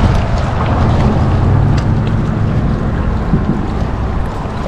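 Steady wind buffeting the microphone over choppy water at the shoreline.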